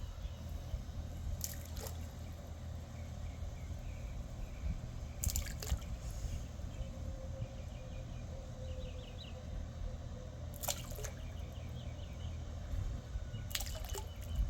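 Water splashing and dripping at the surface: a handful of separate short splashes over a steady low background, from the sardine feeding with fish breaking the surface.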